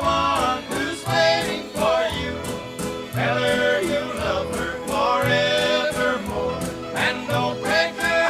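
1950s country band recording: a steady shuffle beat with a lead melody line over it.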